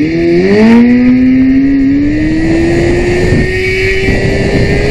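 Motorcycle engine revving up sharply just at the start, then pulling hard with a slowly, steadily rising pitch as the bike accelerates through a gear, over wind noise on the rider's microphone.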